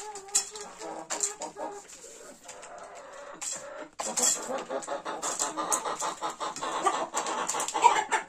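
A flock of Adler Silver chickens clucking. About four seconds in the sound jumps louder, to a dense chorus of many hens clucking at once.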